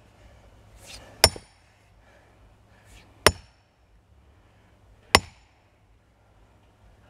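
Sledgehammer striking a steel wedge sunk into a log, four blows about two seconds apart, each a sharp metallic clank with a short ring. The wedge is being driven deeper into stubborn wood to split it.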